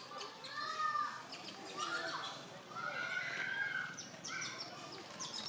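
Monkeys calling: a few drawn-out, arching calls, then a quick run of short, high chirps in the second half.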